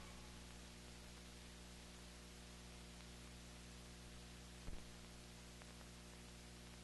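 Near silence: a faint, steady mains hum with light hiss, and one brief click about four and a half seconds in.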